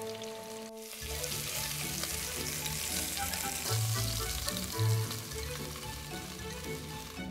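Beef roulades sizzling as they brown in hot fat in a pot: a steady frying hiss that starts about a second in, with background music underneath.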